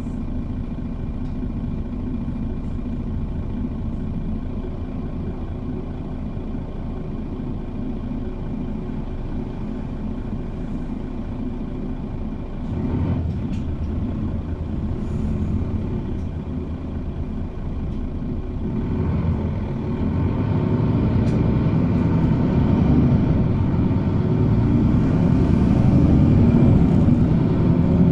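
Interior cabin noise of a city bus on the move: a steady low engine and road rumble. A single knock comes about 13 seconds in, and the rumble grows louder over the last third.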